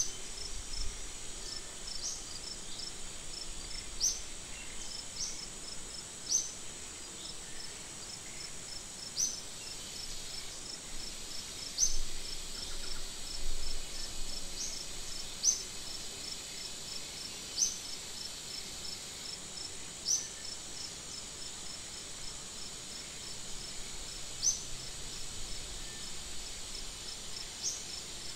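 Insect chorus: a steady high-pitched buzz with a fast ticking pulse beneath it, and short sharp chirps that come every few seconds.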